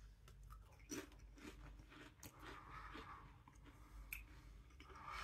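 Faint crunching of a potato crisp being bitten and chewed, with a few sharp crackles scattered irregularly through it.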